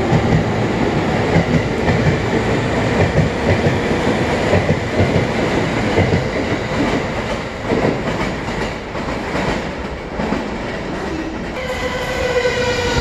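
Chuo-Sobu Line local electric commuter train running along the platform, its wheels rumbling and clacking over the rail joints, the noise slowly easing. Near the end a second train approaches, its traction motors giving a steady whine.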